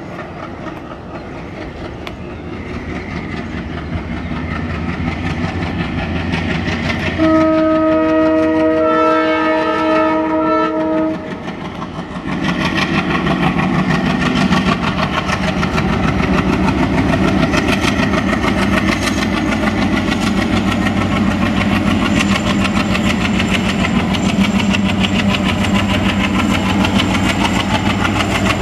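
Indian Railways WDG3A diesel-electric locomotive with its ALCO-design 16-cylinder engine working under load, its chugging growing louder as it approaches. About seven seconds in it sounds one long horn blast of about four seconds, then its heavy chugging and the clatter of the train's wheels fill the rest as it passes close by.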